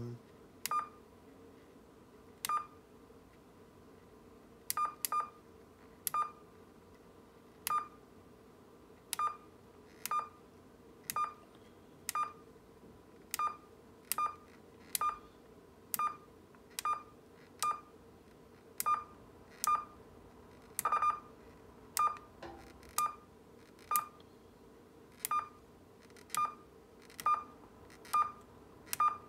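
Key beeps of an AnyTone 5888UV III mobile transceiver as its menu is stepped through: about 28 short, identical pitched beeps at an uneven pace of roughly one a second, one for each menu step. A faint steady hum runs underneath.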